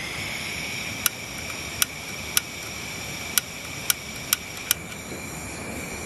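A portable single-burner gas camping stove hisses steadily, with a high whistling tone, as gas flows through the burner. The piezo igniter snaps seven times, about once every half second, as it is pressed to light the gas.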